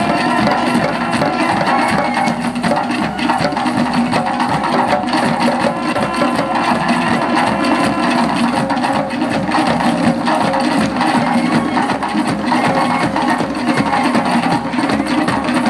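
Live drumming on shoulder-slung hand drums, one beaten with sticks, keeping up a fast, steady beat. Sustained pitched music sounds along with it.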